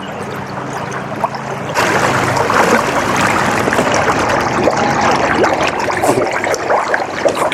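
Fast-flowing floodwater of a swollen river rushing steadily, getting abruptly louder about two seconds in.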